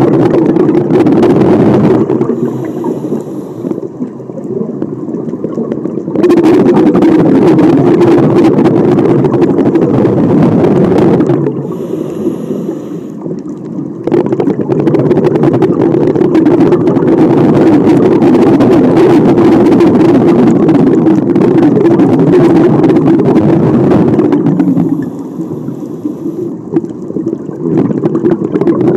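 Scuba breathing heard underwater: long stretches of exhaled bubbles rumbling and crackling past the microphone, broken three times by quieter pauses of a few seconds between breaths.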